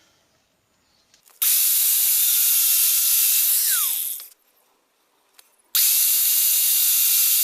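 A power cutting tool cutting a slot into the soft metal of a broken tail-light bolt, run twice for about three seconds each, with a falling whine as each run ends.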